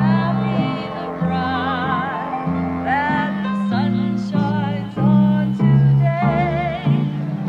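Music: a woman singing a slow song with vibrato over instrumental accompaniment with a stepping bass line.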